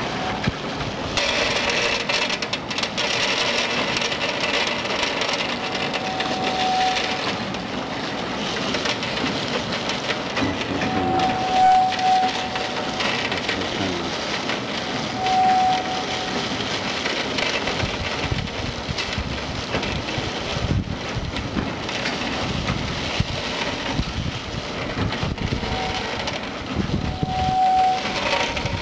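A plastic bag crinkling as raw peanuts are shaken out of it, the peanuts rattling onto the stainless-steel infeed of a continuous peanut fryer. A short steady tone sounds about five times.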